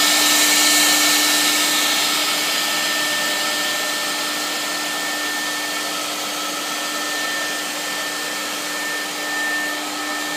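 Conventional electric disinfectant fogger running steadily, its motor blowing fog into a duct: an even rushing hiss with a constant low hum and a high whine, a little louder in the first couple of seconds.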